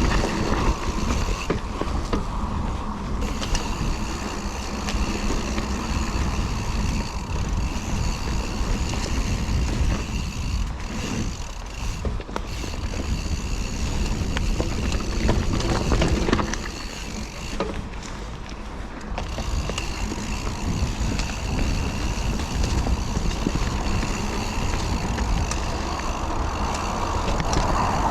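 Giant Reign SX full-suspension mountain bike being ridden down a dirt trail: tyre noise and rattling from the bike, with wind rushing over the action camera's microphone. A steady high buzz runs through it and cuts out briefly three times.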